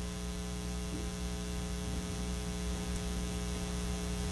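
Steady electrical mains hum: a low buzz with many evenly spaced overtones, unchanging throughout.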